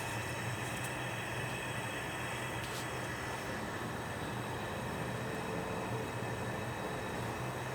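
Steady low rushing hum of a lit kitchen stove burner heating a pot of broth toward the boil.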